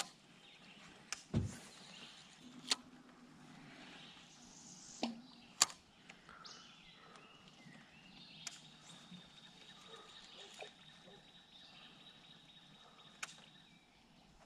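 Scattered sharp clicks and knocks of fishing gear in a boat, one with a low thump on the hull about a second and a half in. A faint, steady, high thin tone sounds through the second half.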